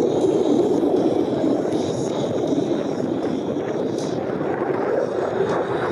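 An F-35A Lightning II's single Pratt & Whitney F135 afterburning turbofan heard in flight: steady, loud jet engine noise, slightly stronger at the start.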